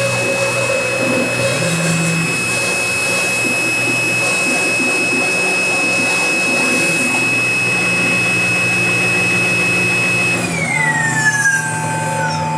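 Small CNC mill's spindle motor running with a steady high whine as the bit cuts through cardboard. About ten seconds in, the whine slides down in pitch.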